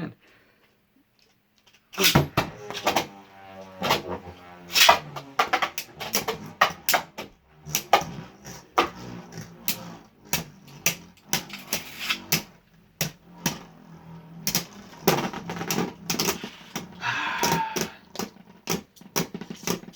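Beyblade Burst tops launched into a plastic stadium about two seconds in, then spinning and clashing, with many sharp clacks as they hit each other and the stadium walls.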